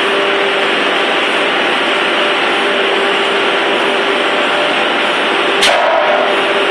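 Retort sterilizer's heavy stainless steel door closing against a steady machinery noise with a faint hum. About five and a half seconds in, one sharp metallic clank with a brief ring as the door seats against the vessel.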